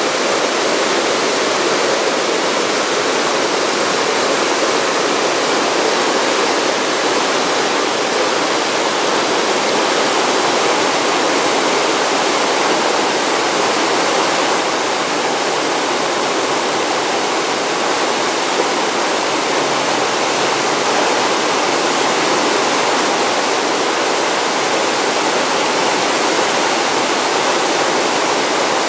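Rocky mountain stream rushing and splashing over boulders and small cascades: a steady, unbroken rush of water.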